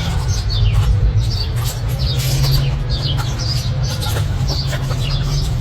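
Birds chirping: short high calls, each falling in pitch, repeated every second or so. They sound over a steady low rumble.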